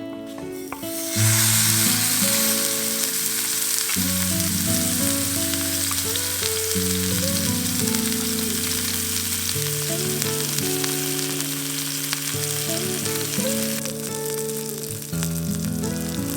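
Pork belly with garlic sandwiched inside, sizzling loudly as it fries over a campfire. The sizzle starts suddenly about a second in, as the meat hits the hot surface, and eases slightly near the end.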